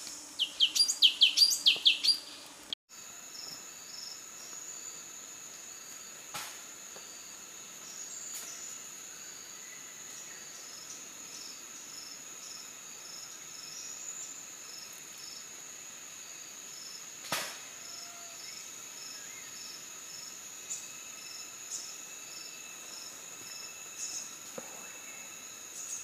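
A bird gives a quick run of loud, high chirps, cut off about three seconds in. After that comes forest ambience: a steady high insect drone with a softly pulsing insect note, broken by a few faint clicks.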